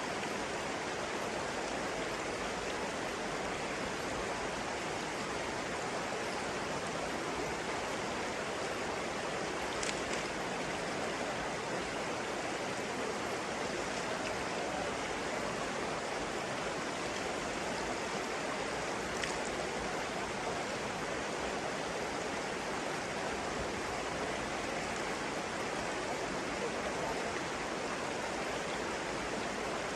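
Flowing stream water, a steady even rush. Two brief faint high ticks come about a third of the way in and again past halfway.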